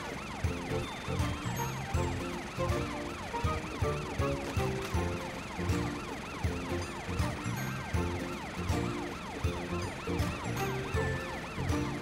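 Cartoon emergency-vehicle sirens from a police car and a fire engine: several fast rising-and-falling wails overlapping. Background music with a repeating bass line plays under them.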